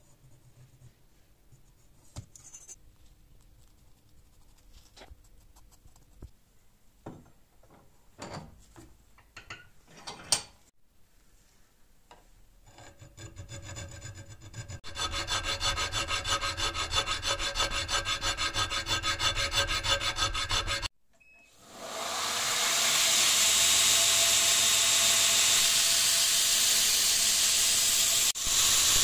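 A few light clicks and scrapes as a line is scribed on a steel katana blade against a ruler, then a hand file rasping across the blade held in a vise. After a short break, a belt grinder runs steadily with the blade against the belt, the loudest sound, in the last third.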